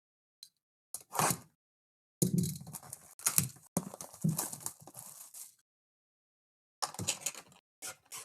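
A sealed trading-card hobby box being opened by hand: plastic wrapping crinkling and cardboard and packs being torn and handled in several bursts, with silent gaps between.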